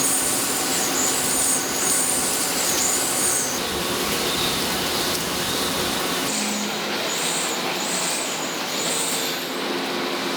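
Bearing-ring production machinery running: a steady mechanical noise with a high whine that rises and falls over and over, the sound changing abruptly about three and a half and six seconds in.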